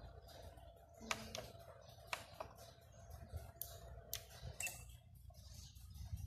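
Faint clicks as buttons are pressed on the control panel of a Jinbei MSN 800 studio flash, about six separate clicks, with a short high beep about four and a half seconds in.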